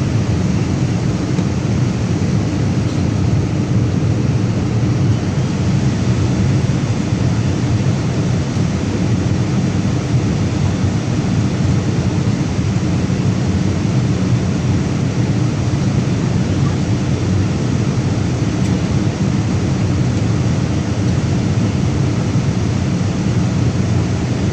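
Steady cabin noise inside a Boeing 787 Dreamliner in flight: the low, even rumble of the engines and rushing airflow, with no changes in level.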